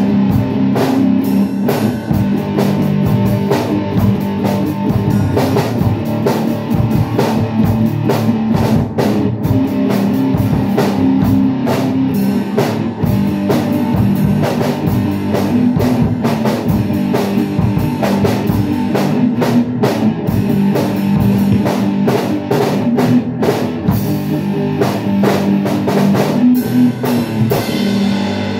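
Rock band playing live and instrumental: electric guitar over a drum kit keeping a steady beat.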